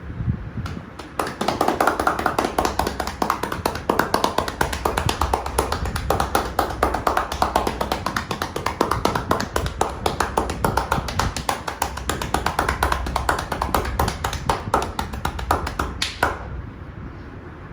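Barber's massage hands striking the body in a fast, steady rapid-fire run of slaps and taps (percussive tapotement massage). The run starts about a second in and stops sharply after a louder final strike near the end.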